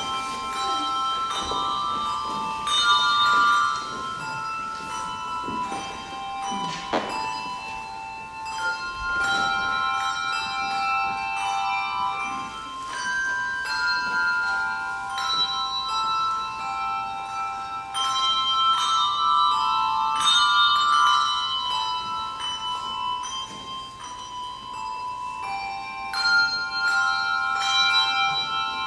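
Handbell choir playing a tune in chords: struck bell notes sounding one after another and ringing on over one another.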